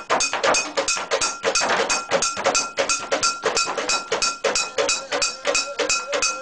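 Fast, steady percussion for a Mentawai shaman's dance: drums and ringing metal gongs beaten in an even rhythm of about five or six strokes a second.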